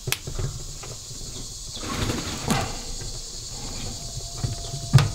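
Crimp-on spade connectors on wires being handled and pushed together, with light clicks and then a single sharp snap about five seconds in as the connection to the DC buck converter's output is made.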